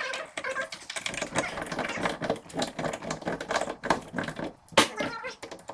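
Rapid mechanical clattering with many small clicks, from tool work on cabinets, and one sharp knock near the end.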